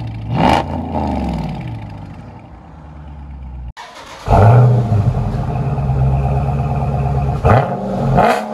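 Dodge Charger's 6.4-litre 392 HEMI V8 through an aftermarket exhaust: a quick rev about half a second in that falls back to idle and fades. Then another 392 Charger on a North Eastern exhaust runs steadily and louder, with two quick rev blips near the end.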